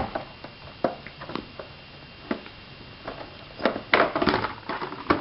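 Graphics card packaging being opened by hand: scattered clicks, taps and short rustles, with a denser run of louder handling noises about four seconds in.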